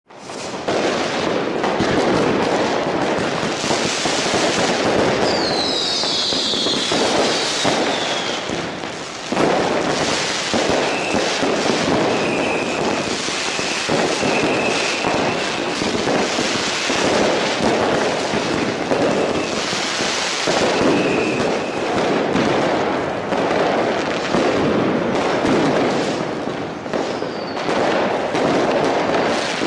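A fireworks barrage: a dense, continuous mass of bangs and crackling from about half a second in, with whistling fireworks falling in pitch a few seconds in and shorter whistles again near the end.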